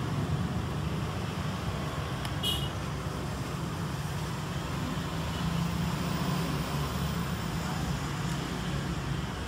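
Steady low hum and rumble, with a brief high-pitched beep about two and a half seconds in.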